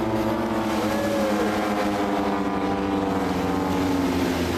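Piston-engine propeller aerobatic planes droning overhead, the engine pitch sliding slowly lower as they pass.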